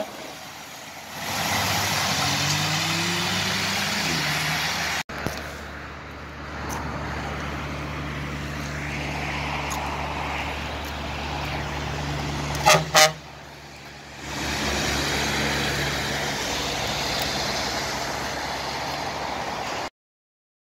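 Heavy diesel trucks, among them a Scania tractor unit, driving past with a steady engine drone and tyre noise, in several short clips. Two short loud horn toots come about two-thirds of the way through, and the sound cuts off suddenly just before the end.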